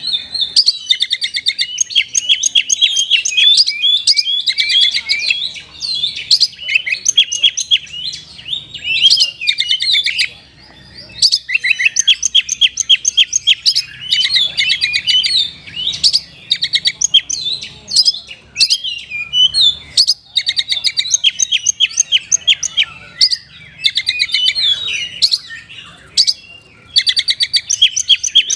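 Oriental magpie-robin (kacer) singing fast, trilled phrases in bouts of a few seconds with short pauses between them, its song filled with kapas tembak-style notes.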